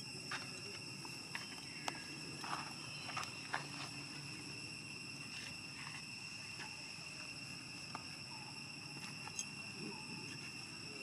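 Insects droning in several steady high tones, with scattered faint clicks and rustles.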